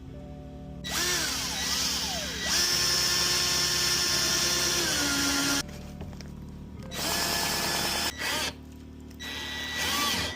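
Power drill driving a screw in several trigger runs, the longest about four and a half seconds, the motor pitch rising as it spins up and dropping as it slows. Background music plays underneath.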